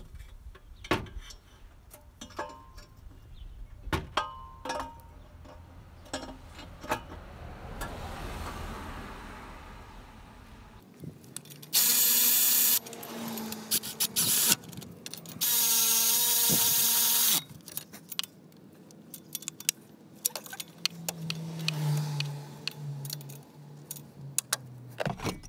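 Metal parts and hand tools clinking as a downpipe is offered up to the turbocharger's outlet studs. A cordless power tool then runs twice in short bursts of steady whine, driving the nuts that fasten the downpipe flange to the turbo.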